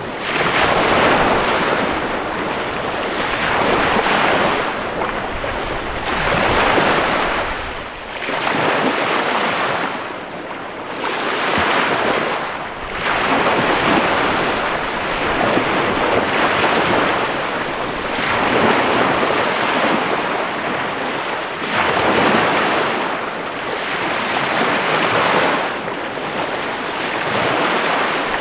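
Small bay waves breaking and washing up a sandy beach, the surf swelling and easing about every two to three seconds.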